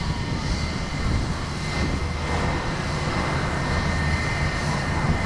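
Aircraft engines running steadily: a low rumble with a thin high whine held on one pitch, without a rise or fall in level.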